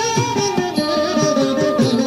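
Instrumental interlude of South Indian devotional music: a melody line stepping and gliding downward over quick, repeated plucked-string notes.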